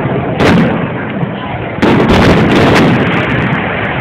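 Aerial fireworks bursting in quick succession: a continuous loud booming rumble, with two sharper bangs about half a second and about two seconds in.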